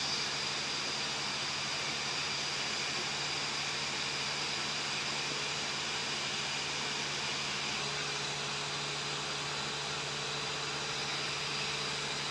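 Steady background hum and hiss of running machinery, an even low hum under a constant hiss with no change.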